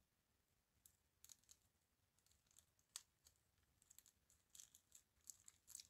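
Near silence: room tone with faint, scattered small clicks and rustles that grow more frequent near the end.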